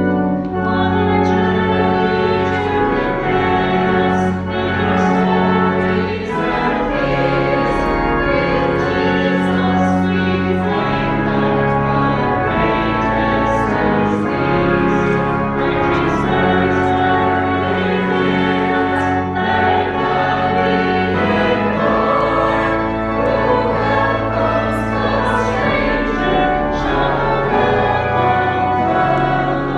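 Choir singing with accompaniment: full, held chords that change every second or two.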